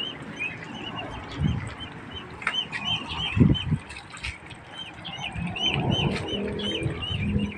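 A flock of young white ducks peeping constantly, with many short, high, arched peeps overlapping one another. A few low bumps stand out, the strongest about three and a half seconds in.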